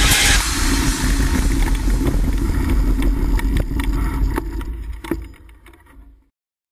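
Downhill mountain bike riding a rough dirt trail, heard from a handlebar-mounted action camera: a steady low rumble of wind and ground noise with scattered clicks and knocks from the bike rattling. The sound fades as the bike slows, then cuts off about six seconds in.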